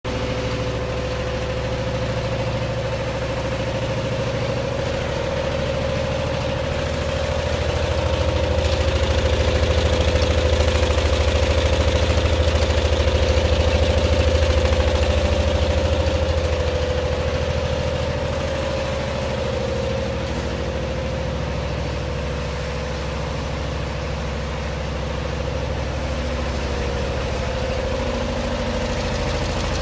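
Richpeace multi-needle chainstitch quilting machine running, its row of needles stitching at a fast even rate: a rapid chatter over a low hum and a steady tone. It grows louder for several seconds midway, then settles back.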